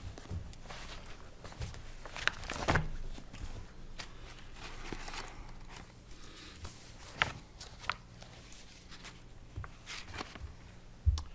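Quiet meeting room with scattered small knocks and rustles of papers being handled at a table with microphones, over a faint steady hum.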